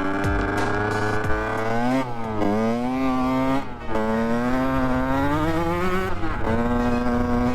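Dirt bike engine revving hard while riding. Its pitch drops sharply three times, about two seconds in, near four seconds and near six seconds, and climbs back each time as the throttle is closed and reopened or a gear is changed.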